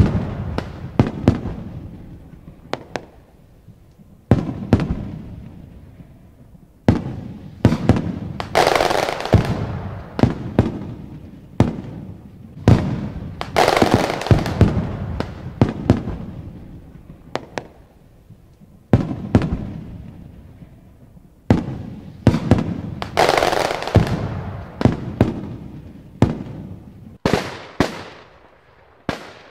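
Aerial firework shells bursting overhead one after another, a sharp bang every one to three seconds, each dying away in a long echo; several bursts trail off in a hissing crackle lasting a few seconds.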